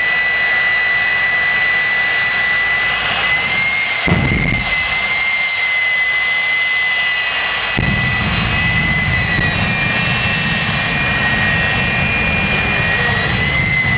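Jet engine of a jet-powered semi truck running with a steady high whine. About four seconds in there is a sharp bang, and from about eight seconds a deep rumble joins the whine as the afterburner blasts flame.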